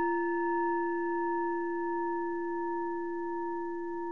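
Singing bowl struck once, ringing on in several steady overtones that fade slowly.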